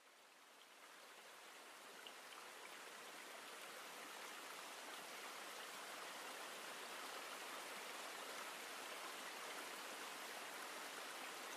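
Steady rushing of running water that fades in over the first few seconds and then holds steady.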